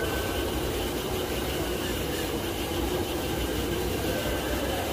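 Power sander running steadily, sanding body filler on a car fender: a continuous whirring hum with a slight waver in pitch.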